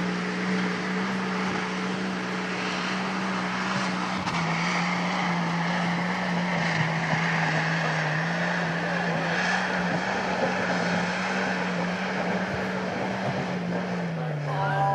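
Jeep engine held at steady high revs under load as it climbs a steep trail, a droning note that shifts a little up and down in pitch, with the revs dropping near the end.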